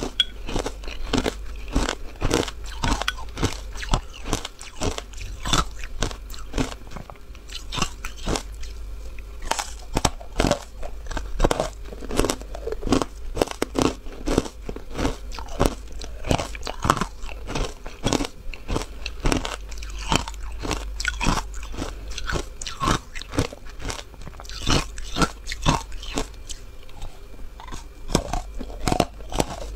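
Matcha-dusted ice being bitten and chewed close to a clip-on microphone: a dense, unbroken run of sharp crunches, several a second.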